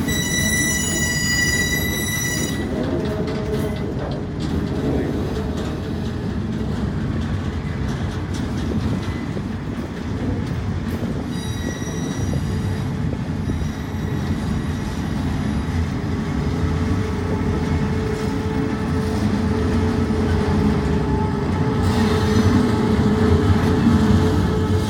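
Freight train of autorack cars rolling past with a steady rumble of steel wheels on rail. A high-pitched wheel squeal sounds in the first couple of seconds and again about twelve seconds in, and a lower, steady squeal runs through the second half.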